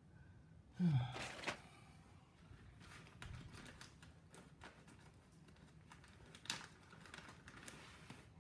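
Light scattered clicks and clinks of small shock internals being handled on a bench, with a louder clunk about a second in.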